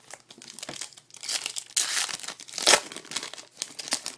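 A foil trading-card pack wrapper being torn open and crinkled by hand, a dense crackling that is loudest about two and a half seconds in.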